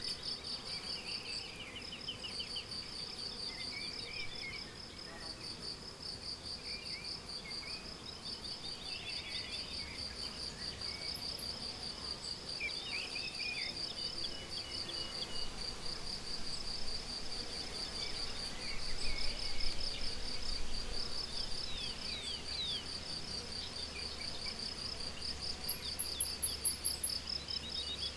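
Crickets chirping continuously in rapid pulsed trains. Short bird calls and song phrases come in here and there, with a couple of brief very high-pitched notes.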